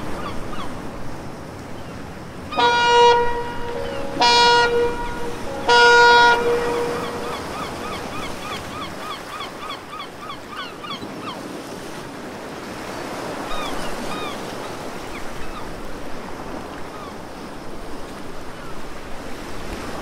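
A horn sounds three blasts of about a second each, roughly a second and a half apart, starting about two and a half seconds in. Around it, gulls call repeatedly over a steady wash of harbour water.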